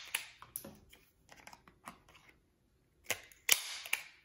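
Small clicks and paper rustling as card floss tags are handled and fitted into a plastic hand-held circle hole punch: a string of sharp light clicks, with a louder brushing rustle about three seconds in.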